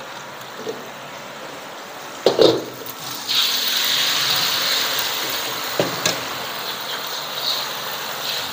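Beaten egg poured into a hot carbon-steel wok sizzles, starting suddenly about three seconds in and slowly fading as the thin egg sheet sets. A sharp metal knock comes just before the pour and a smaller click a few seconds later.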